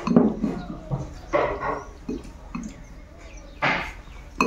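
Close-miked eating sounds: a person chewing and smacking a mouthful of rice and curry, in three or four separate bursts, with a sharp click near the end.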